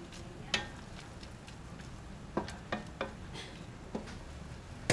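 A spatula knocking and scraping against a wok while stir-frying noodles: about six sharp, separate clicks, three of them close together in the middle, over a low steady hum.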